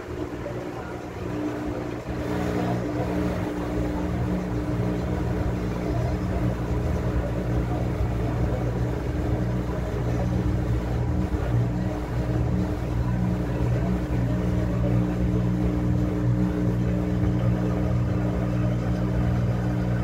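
Top-loading washing machine running, a steady mechanical hum with several low tones held throughout, stepping up in level about two seconds in.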